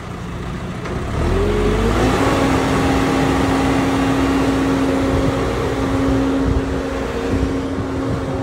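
Engine of the crane lifting a heavy glass panel revving up about a second in, then holding at steady high revs to drive the hoist as the glass is raised.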